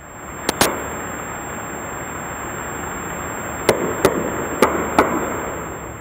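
Underwater recording of sharp knocks over a steady hiss: a quick pair about half a second in, then four more over about a second and a half near the end. These are the banging noises Canadian search aircraft heard from under the ocean during the Titan submersible search. Some once took them for knocking from inside the sub; they have since been judged to come from another source, possibly a ship in the search.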